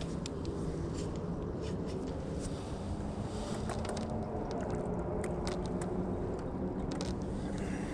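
A small boat motor running steadily with an even hum, with scattered light clicks over it.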